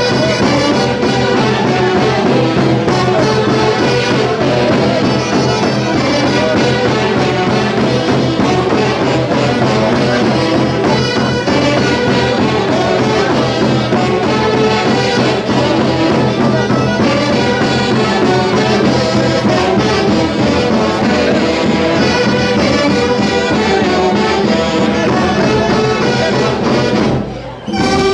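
Live Peruvian folk orchestra playing Santiago music, led by wind instruments, loud and continuous, with a brief break about a second before the end.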